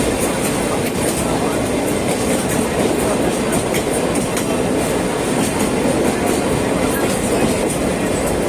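Sagano Romantic Train carriage running along the track, heard from on board: a steady rumble of wheels on rails with a light clatter.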